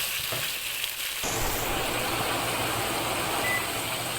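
Onions sizzling in hot olive oil in a cooking pot, the sizzle swelling to a louder, fuller hiss about a second in as they hit the oil.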